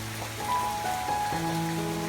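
Calm background music of slow, held notes over a steady, rain-like hiss.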